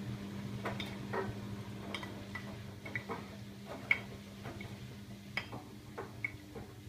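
Siemens iQ700 front-loading washing machine tumbling its load mid-wash: a steady low motor hum under about a dozen irregular sharp clicks and clinks as the laundry knocks about in the drum.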